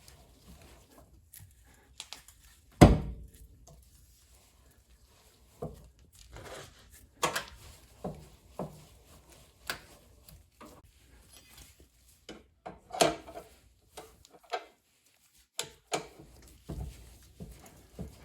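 Scattered clanks and knocks of tools and parts being handled while working on a car's rear wheel, with one loud bang about three seconds in and a few sharper knocks later.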